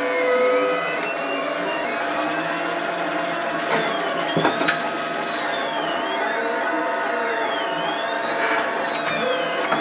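3D printer running a print: its stepper motors whine in repeated rising-and-falling glides as the print head moves back and forth, over a steady hum.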